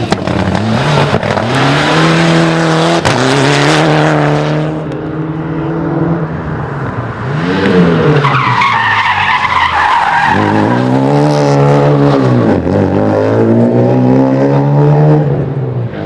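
Rally cars driven at speed on a stage: first a Mitsubishi Lancer Evolution, then a small hatchback. Each engine's note climbs and drops again and again as it accelerates and comes off the throttle, with a stretch of tyre squeal near the middle.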